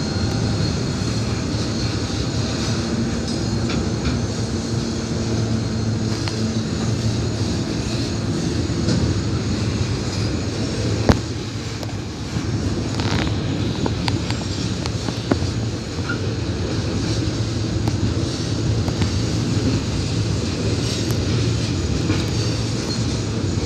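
CSX freight train's cars, mostly flatcars loaded with bundled lumber, rolling past on the rails: a steady rumble of wheels on track with scattered clicks and one sharp knock about eleven seconds in.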